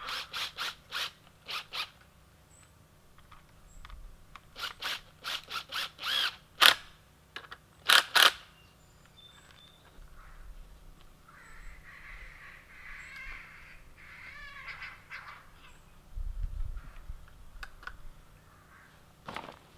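Sharp clicks and knocks of hands working electric fence wire and insulators come in two clusters, the louder one in the middle. Softer rustling and a few low thumps follow.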